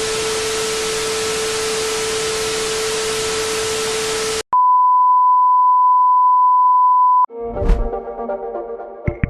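Even static hiss with a steady low tone through it for about four and a half seconds, cut off abruptly by a loud, pure, steady test-tone beep lasting under three seconds. Then music with layered tones begins, with a low thud near the end.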